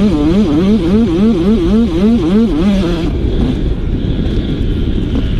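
Pit bike's single-cylinder engine under a riding throttle, its pitch rising and falling quickly, about three times a second, over a steady rush of wind on the helmet-camera microphone. About three seconds in the engine note fades and the wind rush is left.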